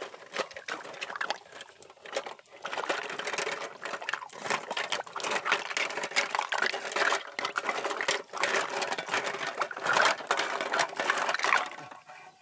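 Snail shells clattering and scraping against one another and the steel pot as hands scrub them in water, a dense run of rapid clicks with some sloshing, easing off near the end.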